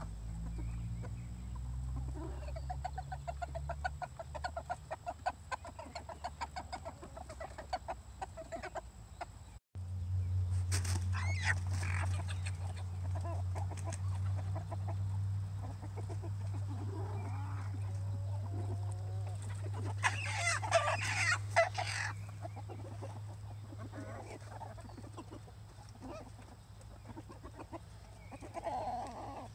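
Chickens clucking: a fast run of clucks for the first several seconds, then scattered calls, with the loudest, harsher burst of calling about two-thirds of the way through. A low steady hum lies underneath for the second half.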